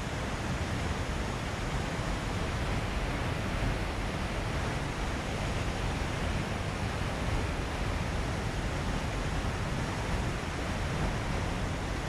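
A waterfall's falling water making a steady, even rushing noise with no breaks.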